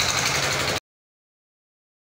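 Single-cylinder LD1115 diesel engine running steadily, then the sound cuts off abruptly less than a second in, leaving complete silence.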